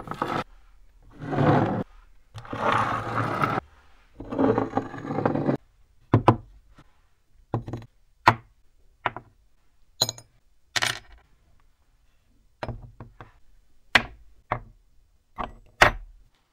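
Freshly painted metal hand-drill parts being set down one at a time on a workbench: about a dozen short, sharp knocks at uneven intervals, after a few longer scraping noises in the first five seconds.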